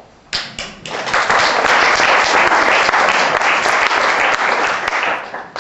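Audience applauding: a few scattered claps, then full applause for about four seconds, dying away near the end.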